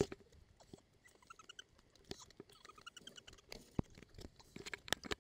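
Scattered footsteps and light knocks of people moving on asphalt, irregular and uneven, with a few faint high chirps about a second in and again about three seconds in.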